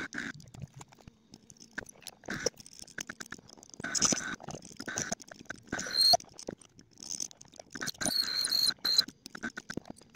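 Homemade lathe machining a part: a motor whine heard in short runs, with irregular scraping and chattering from the cutting tool, stopping and starting several times.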